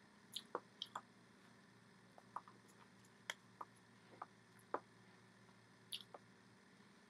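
Near silence with a faint steady hum, broken by about ten soft, irregular clicks and smacks from a person signing in sign language.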